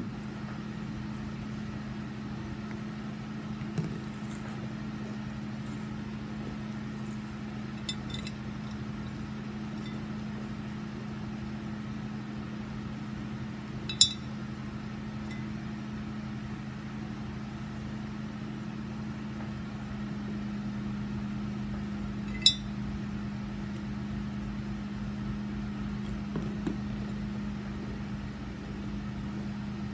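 A spoon clinking against a bowl now and then: a few sharp, separate clinks several seconds apart, the loudest two about halfway through and about two-thirds through. Under them runs a steady low hum.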